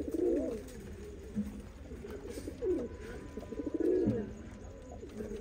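Domestic pigeons cooing: a series of coos that rise and fall in pitch, loudest at the start and again around four seconds in.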